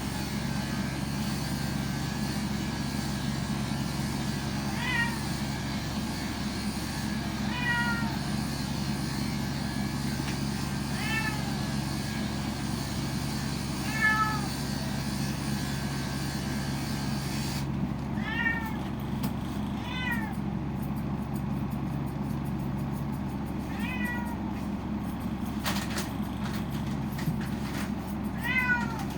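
Domestic cat meowing about eight times, short calls spaced a few seconds apart, over a steady low hum.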